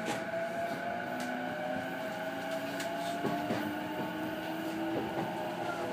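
Inside a JR East E233 series 6000 electric train, the traction motors whine and climb slowly in pitch as the train gathers speed. The steady running noise of the car carries a few clicks from the wheels.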